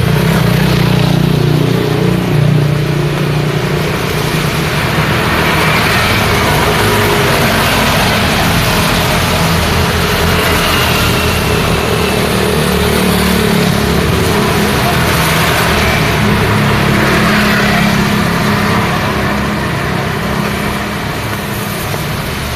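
Road traffic in the rain: vehicle engines running close by over a steady hiss of rain and tyres on the wet road.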